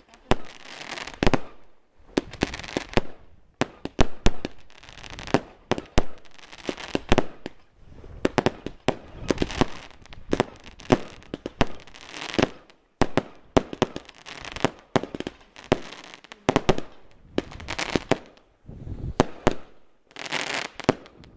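Category 2 consumer fireworks going off in a rapid string of sharp bangs, about one or two a second, as shots launch and burst, with a noisy crackle between the bangs.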